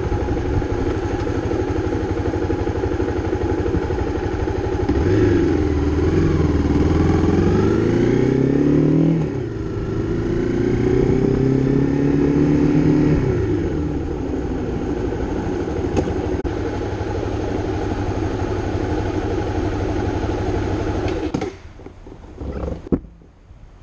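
Honda CRF250's single-cylinder four-stroke engine idling, then revving up as the bike pulls away, its pitch climbing, dropping at a gear change and climbing again, before settling into steady running. The engine sound cuts off suddenly near the end.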